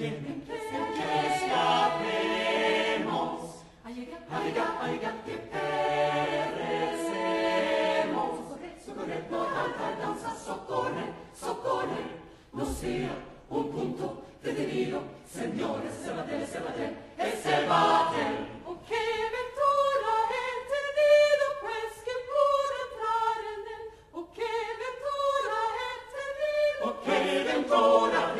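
Mixed choir singing a cappella in a lively, rhythmic passage. About two-thirds of the way through, the low voices drop out and the upper voices sing on alone, then the full choir comes back in near the end.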